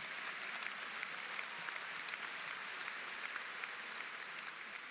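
A large audience applauding: many hands clapping in a steady patter that thins a little near the end.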